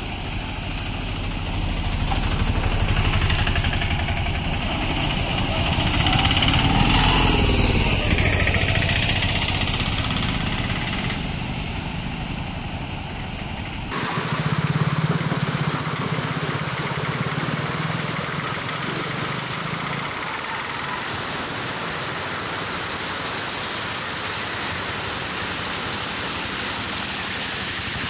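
Auto-rickshaws' small engines running as they drive through shallow floodwater, their tyres splashing and spraying water. The first one grows louder as it comes closer. The sound changes suddenly about halfway through, and after that an engine hum fades into a steady rush of water.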